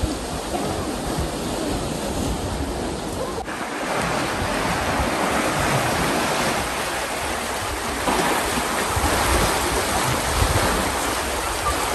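Water rushing through the open paddles of a canal lock as the chamber empties to equalise the levels, a steady, forceful churning rush. It grows louder about four seconds in.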